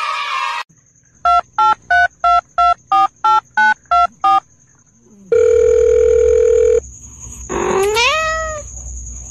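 A run of nine short telephone-keypad beeps, about three a second, then one long steady beep. About a second later a cat gives a short meow that rises and then falls in pitch.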